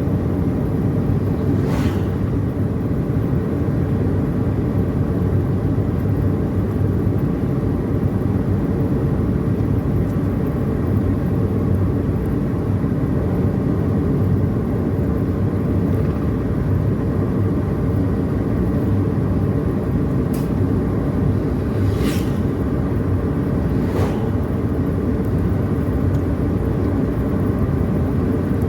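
Steady low rumble of a car's engine and tyres on the road while driving, with a few brief clicks.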